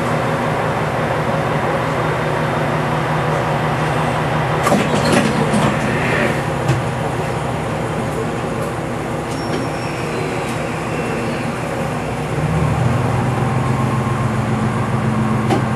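KiHa 120 diesel railcar's engine idling steadily, then running up louder about thirteen seconds in as the railcar starts to pull away. A cluster of clicks and a short hiss come about five seconds in.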